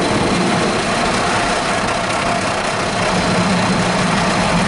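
Automatic car wash brushes scrubbing across the car with water spray, heard from inside the cabin as a loud, steady rushing wash over a low machinery hum.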